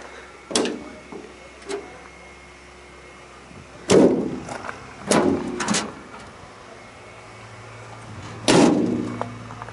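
Metal compartment doors of a pickup's service-body work box being unlatched and swung open: a series of sharp metallic clanks, the loudest ones ringing briefly.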